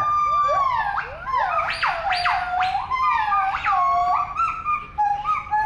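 Gibbons singing: clear, pure whooping calls that slide in pitch. A long held note is followed by a run of quick notes that sweep up high and drop back, with several voices overlapping toward the end.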